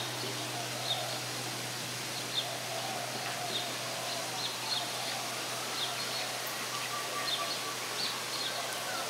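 Outdoor ambience: a steady hiss with small birds chirping briefly, short high chirps every second or so, over a faint low hum.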